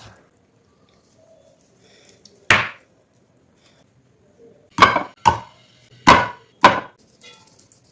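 Knife chopping on a cutting board: five sharp chops, a single one about two and a half seconds in, then four more in two quick pairs.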